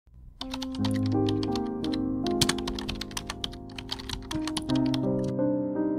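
Rapid keyboard-typing clicks, a sound effect for the title being typed out letter by letter, stopping near the end. Under them runs soft piano background music.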